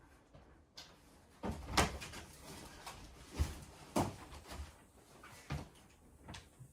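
A series of irregular knocks and thumps, about half a dozen, the loudest about two seconds in.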